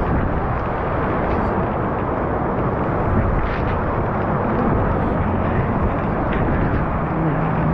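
Floodwater rushing in a swollen river, a loud, steady, unbroken noise.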